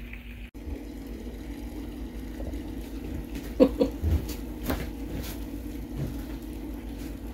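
Steady low hum of a kitchen, with a few light knocks from things being handled on the counter.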